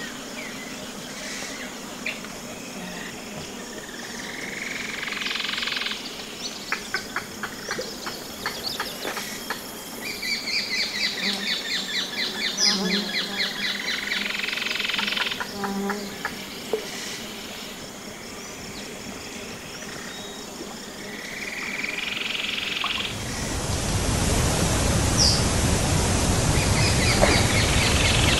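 Tropical ambience of birds calling and insects chirping, with rapid high trills and chirps coming and going. Near the end it gives way suddenly to the steady, loud rush of a waterfall.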